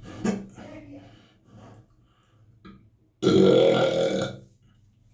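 A person's long, loud burp, starting abruptly about three seconds in and lasting just over a second. A shorter sound comes just after the start.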